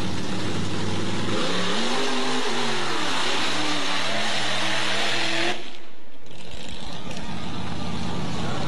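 Mud-racing Jeep's engine running, then revving hard, its pitch climbing and falling over a loud rushing noise. About five and a half seconds in, the sound changes abruptly: the rushing drops away and leaves a lower, steadier engine drone.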